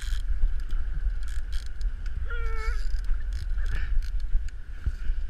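Steady low rumble of a Suzuki 200 outboard motor running, with wind on the microphone and a few small clicks. About two seconds in comes one short, high, flat-pitched call.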